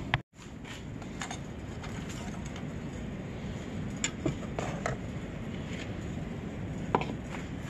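A few light clicks and taps from handling the plastic oil-fill cap and dipstick of a riding mower engine, a cluster about four seconds in and one more near the end, over steady low background noise.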